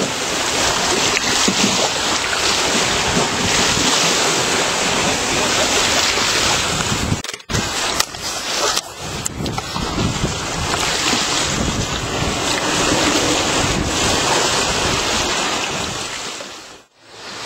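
Wind blowing hard across the microphone over ocean water and waves. The sound cuts out briefly about seven seconds in and again just before the end.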